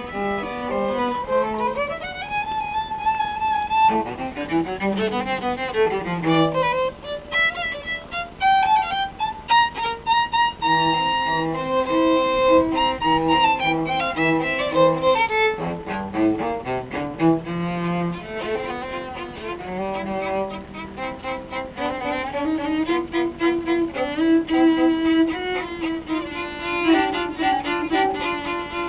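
A violin and a cello playing a classical piece together, with a moving melody over lower sustained notes.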